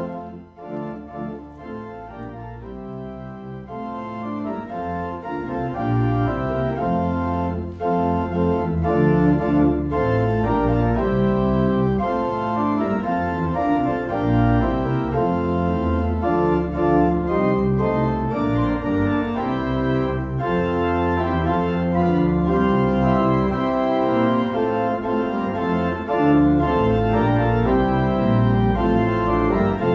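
Church organ playing full sustained chords over deep bass notes, the chords changing every second or so; it starts soft and swells in the first several seconds, then holds at full volume.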